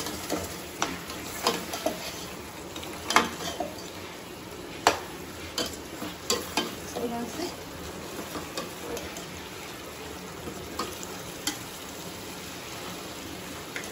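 Chicken curry masala sizzling as it fries in a stainless steel pot and is stirred with a metal slotted spoon, with irregular sharp knocks and scrapes of the spoon against the pot, fewer in the second half. A little water has just gone in so the masala fries without sticking.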